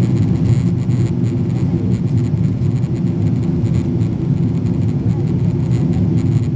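Steady jet engine and airflow rumble heard inside the passenger cabin of a Boeing 777-200ER in flight.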